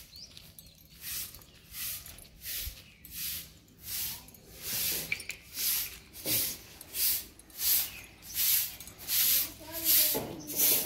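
Heavy rhythmic breathing close to the microphone, about three breaths every two seconds, growing louder as it goes, with a short pitched sound near the end.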